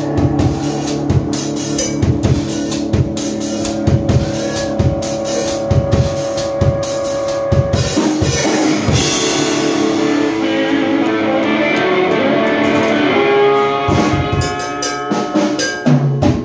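Live blues-rock duo playing the close of a song on electric guitar and drum kit. Steady drum strokes drive the first half; about eight seconds in the drums mostly drop away and ringing guitar chords carry it, with a few last hits near the end.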